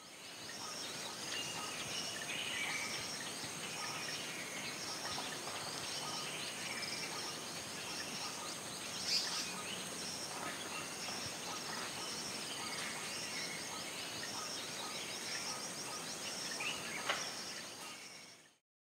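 Rural outdoor ambience: a steady high insect drone with scattered bird chirps throughout, and two short sharp clicks, one about halfway through and one near the end. It fades in at the start and fades out just before the end.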